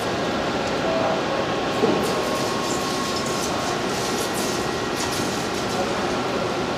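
Captain Morgan 70-proof rum poured onto a red-hot electric stove coil, sizzling with a steady hiss and a few faint scattered crackles.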